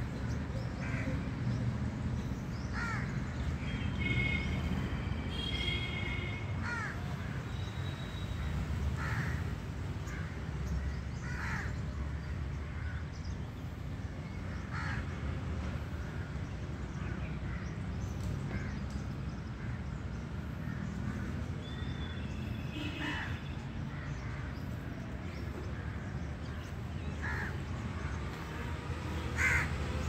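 Repeated short bird calls, one every second or two, over a steady low rumble.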